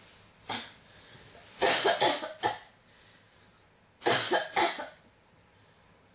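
A person coughing in fits: a single cough, then a run of about four quick coughs, then after a pause a run of about three.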